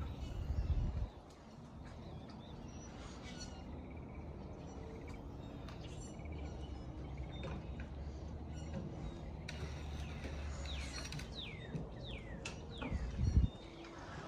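Outdoor ambience with birds calling, including a run of several quick downward-sliding chirps late on. A low steady rumble runs through the middle, and a brief loud low thump comes just before the end.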